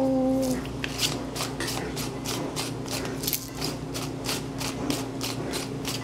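Pepper mill being twisted over a bowl, a steady run of short grinding strokes about three a second as black pepper is ground onto a bean and cucumber salad.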